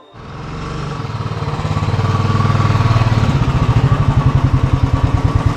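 Motorcycle engine running at low speed as the bike is ridden in slowly. It grows louder over the first couple of seconds, then settles into a steady, even, fast beat.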